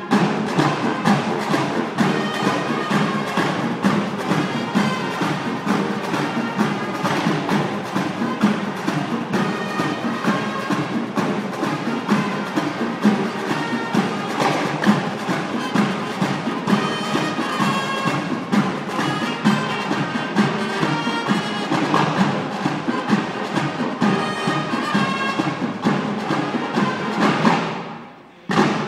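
Marching band of brass and woodwind instruments, with a sousaphone on the bass line, playing with percussion. The music drops out briefly near the end, then comes back in.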